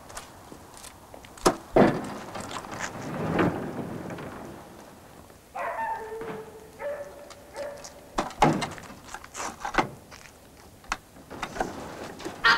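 Knocks and thuds of a wagon door being handled and pushed open, with a drawn-out pitched creak about six seconds in and further knocks later.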